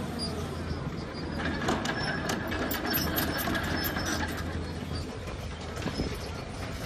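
Volvo crawler excavator's diesel engine running under hydraulic load as the boom lifts and the upper body swings, with a steady whine from about a second and a half in to about four seconds and rapid metallic clanking and rattling in the middle.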